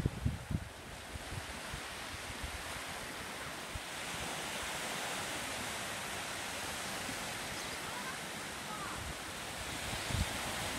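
Small waves breaking and washing up a sandy beach, a steady surf hiss that swells a little partway through. Wind buffets the microphone in the first second and again near the end.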